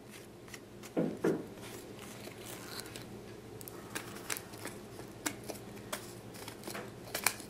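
Small plastic clicks and rattles from a toy pump-up air horn being handled and worked, as it fails to pump. Two louder thumps about a second in. No horn blast.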